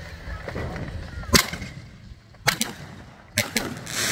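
Consumer fireworks going off close by: a handful of sharp cracks about a second apart, the loudest about a second and a half in, and a longer, hissing burst near the end as a shower of sparks goes up.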